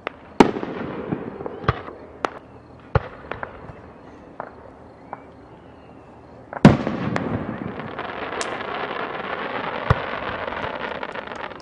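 Aerial fireworks shells bursting. A loud bang near the start is followed by scattered sharp pops. A second loud bang about two-thirds through gives way to several seconds of dense crackling.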